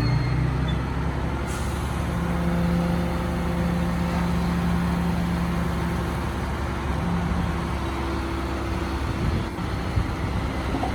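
Bulldozer's diesel engine running steadily, with a low rumble and a slight drift in pitch.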